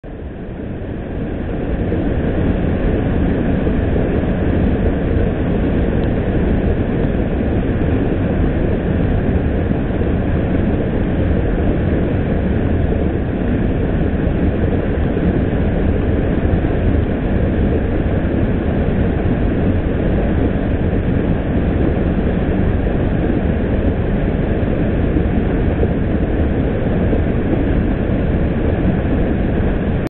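Waterfall: a fast river pouring over and between rocks in a loud, steady rush of water. It fades in over the first second or two.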